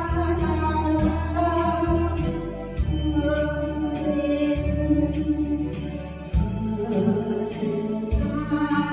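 Slow folk-ballad music: a melody of long held notes, changing every second or two, over a steady bass line.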